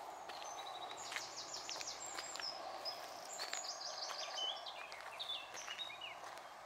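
Songbirds singing: a run of quick high trills and short whistled, down-slurred notes, over steady background noise.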